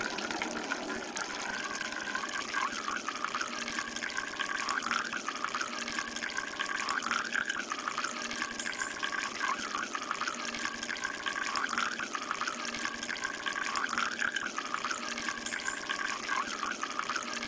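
Water running steadily out of a miniature tanker trailer's small outlet pipe and splashing onto sand.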